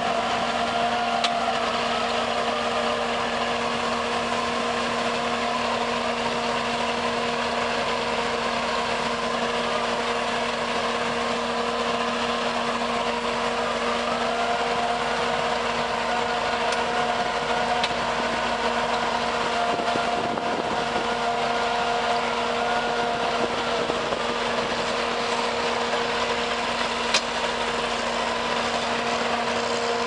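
Crawler tractor's diesel engine running steadily under load as it pulls a large ditching plough through the soil, a constant hum throughout.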